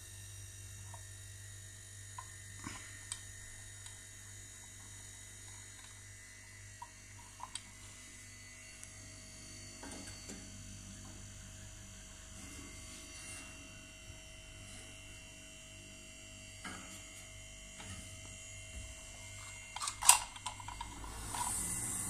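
Refrigerator's R-134a hermetic compressor running with a steady low hum while the system is being charged with refrigerant. Light scattered clicks and one sharp clack about 20 seconds in come from handling the gauge manifold and hoses.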